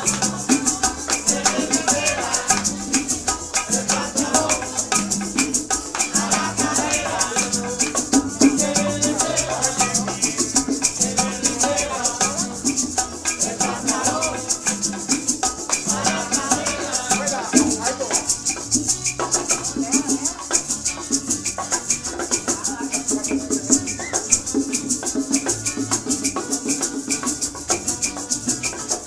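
Cuban music: maracas shaking a steady, quick rhythm over plucked strings and a melody line.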